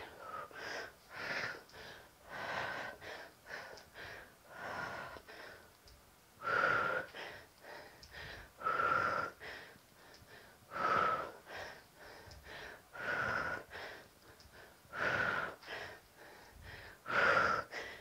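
A woman's heavy breathing while she exercises: a loud breathy exhale about every two seconds, each with a thin whistling tone, and softer breaths in between.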